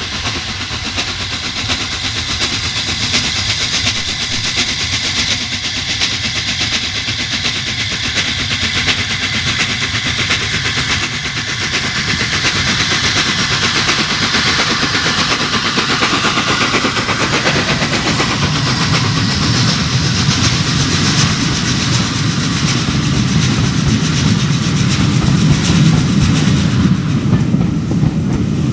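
LNER A3 Pacific 60103 Flying Scotsman, a three-cylinder steam locomotive, passing with its train, its exhaust beating in a fast rhythm. The rumble and clickety-clack of the coaches rolling by grows louder toward the end.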